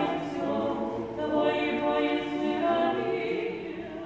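Choir singing a cappella in long held chords, growing a little quieter near the end.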